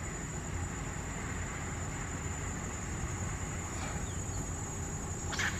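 Steady low outdoor rumble with a thin, constant high-pitched whine, and a short, sharp high call near the end.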